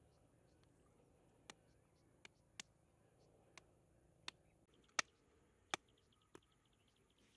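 Sharp, irregular taps of hard green mangoes set down on a rock, about eight in all, the loudest about five seconds in. From about the middle, a cricket chirps faintly in quick, even pulses.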